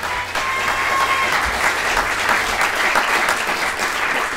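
Theatre audience applauding, dense and steady, with a brief thin high tone over it in the first second or so.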